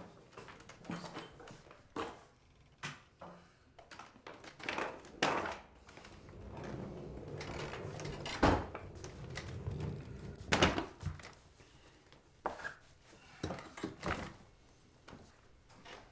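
Scattered knocks, clunks and rattles of a wooden umbrella cart and umbrellas being handled and set down in a small room, with two heavier thuds near the middle.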